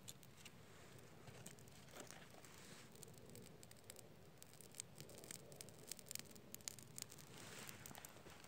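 Faint scraping and small sharp ticks of a knife blade shaving dry split wood and bark into tinder.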